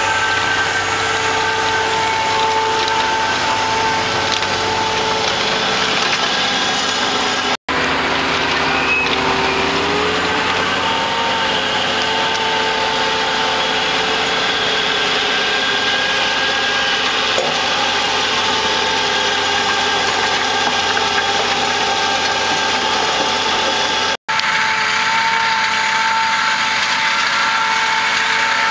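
Fendt 900-series tractor working a Kuhn front hopper and folding power-harrow drill combination while sowing: steady engine and machinery noise with a whine over it. The sound drops out for an instant twice.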